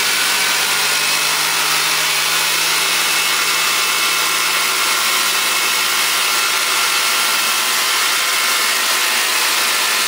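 Homemade sawmill's engine running steadily at speed while its blade cuts along the top of a wooden cant, taking a shaving off to true up the cant's twisted, warped face.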